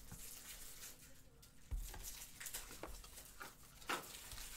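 Faint handling noises at a desk: a few scattered light clicks and taps, with a soft low bump about two seconds in.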